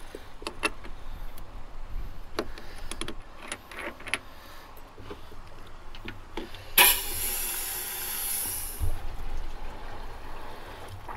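Small clicks and knocks of a metal deck-fill cap being opened and a garden-hose spray nozzle being fitted into the filler. About seven seconds in, a sudden loud hiss of water gushing from the hose nozzle into the boat's fresh-water tank filler, easing after a couple of seconds to a steadier rush.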